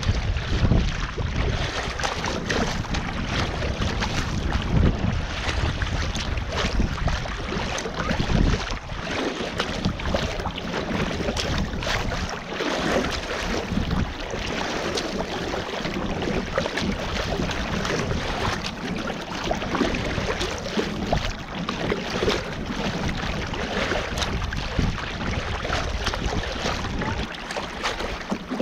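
Choppy sea water slapping and splashing against the bow of a sea kayak under way, with wind buffeting the microphone in a low, gusting rumble.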